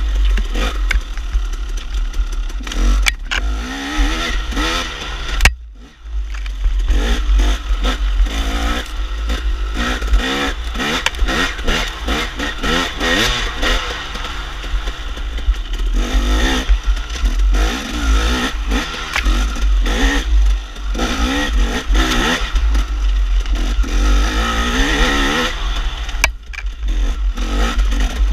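KTM dirt bike engine revving up and down over and over, its pitch rising and falling with the throttle. The engine sound drops off sharply for a moment about five and a half seconds in, and again briefly near the end.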